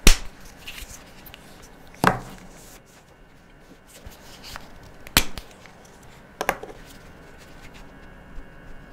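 Four sharp plastic clicks spread over several seconds, the first the loudest: highlighter markers being capped, uncapped and set down while swapping colours.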